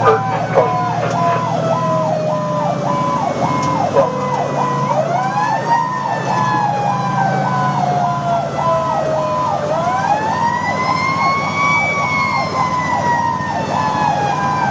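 Fire engine running with its sirens on, heard from inside the cab: an electronic siren cycles fast up and down over and over, while a second, slower siren tone falls away steadily and winds back up twice. The truck's engine hums underneath.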